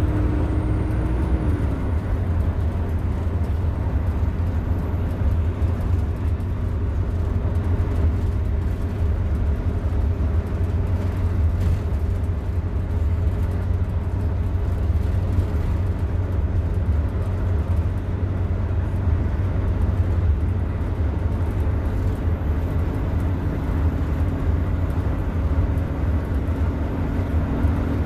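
Interior of a 2001 Orion V diesel bus under way: steady low rumble of its Detroit Diesel Series 50 four-cylinder engine with road noise, and a driveline whine that drops away about a second and a half in and comes back near the end.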